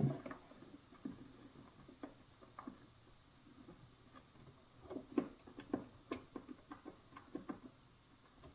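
Faint, scattered clicks and taps of plastic parts and wiring connectors being handled inside a refrigerator's freezer compartment, most of them in the second half, as the ice maker wiring plugs are refitted.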